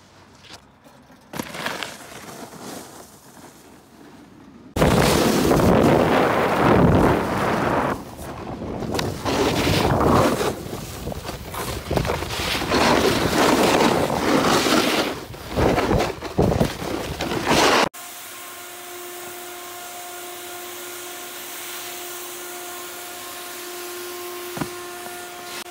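Wind rushing over a phone microphone and a snowboard scraping on packed snow while riding downhill, loud and uneven. A sudden cut near two-thirds of the way through leaves a quieter steady hiss with several held tones.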